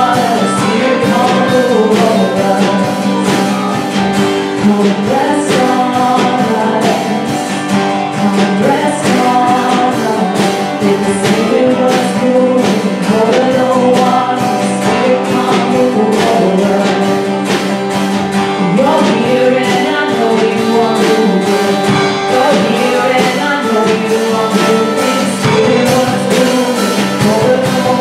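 A live worship song, sung over a strummed acoustic guitar keeping a steady rhythm.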